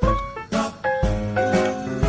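Background music: a melody of held notes over a steady beat, with a deep kick about once a second and a lighter hit between.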